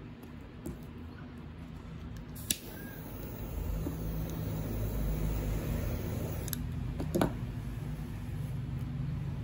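A lighter clicks alight about two and a half seconds in and its gas flame hisses steadily for about four seconds, heating heat-shrink tubing on a wire, then cuts off with a click; another sharp click follows soon after.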